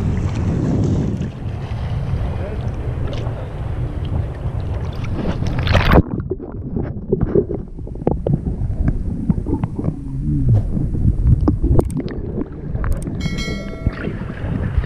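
Wind buffeting and water sloshing on an action camera's microphone in shallow sea. About six seconds in, the camera goes underwater and the sound turns muffled, with scattered knocks and crackles. Near the end there is a brief pitched tone.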